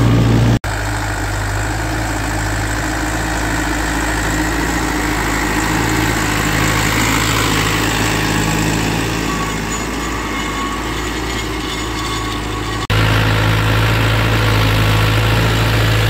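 YTO 604 tractor's 60-horsepower diesel engine running steadily while pulling a deep plough through the soil. The sound breaks off for an instant about half a second in and again near the end, and the engine note is louder and steadier after the second break.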